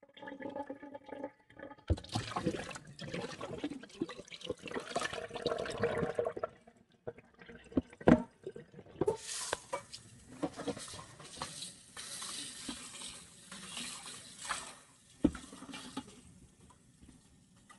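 Kitchen tap running into a stainless steel sink while raw chicken pieces are swished and rinsed by hand in a bowl of water. There are a few sharp knocks, one about eight seconds in and another near the end.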